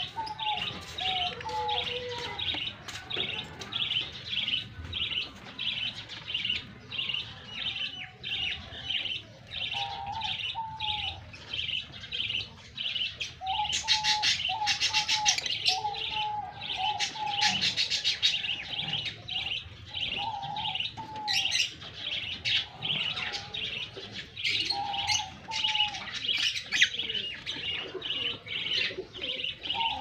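Lovebirds chirping in a steady run of short, high calls, about three or four a second, with a louder burst of chatter for several seconds around the middle. Lower warbling notes come and go.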